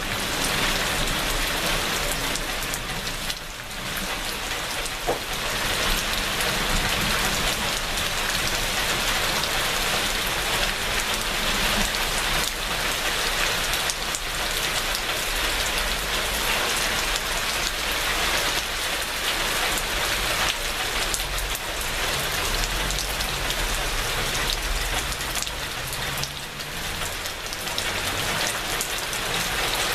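Steady rain falling, a continuous even hiss of drops.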